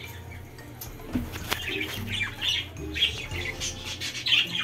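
Budgerigars chattering with short chirps and squawks, with a few light knocks.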